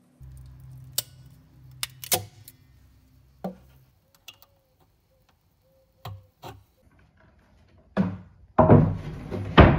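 Sharp clicks and taps of insulated spade connectors being handled and pushed onto a subwoofer driver's terminals, over a low hum for the first few seconds. Near the end comes the louder scraping and knocking of a plywood cabinet panel, ending in one hard wooden knock.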